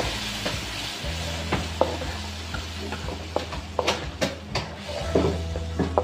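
Spice paste, thinned with a little water, sizzling in a non-stick wok while a slotted spatula stirs it. The spatula scrapes and clicks against the pan several times, mostly around the middle and again near the end.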